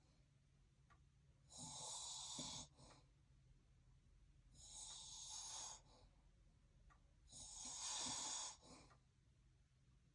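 A man with sleep apnea snoring in his sleep: three snoring breaths, each about a second long, roughly three seconds apart.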